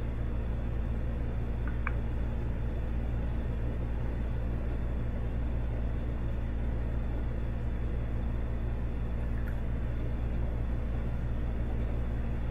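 Steady low hum with an even hiss above it, unchanging throughout, with two faint light clicks, about two seconds in and again near ten seconds.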